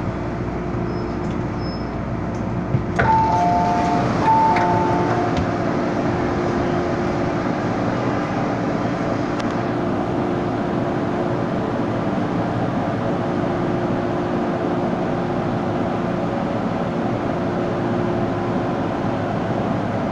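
MTR M-Train pulling to a stop at a station platform: a sharp clunk about three seconds in, then a two-note door chime sounded twice as the doors open. After that the standing train keeps up a steady hum with a low steady tone.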